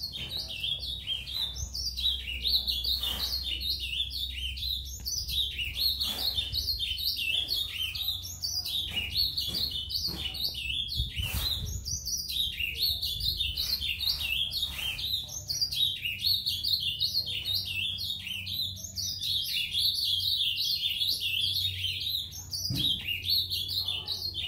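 Young brown-plumaged male ultramarine grosbeak (azulão) singing surdina, the quiet, rambling practice song of a bird still learning its song. It is a long unbroken run of fast, high twittering notes that barely pauses.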